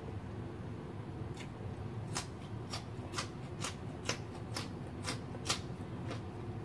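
Crisp crunches of a person chewing and biting a raw green chili, about two a second, over a steady low hum.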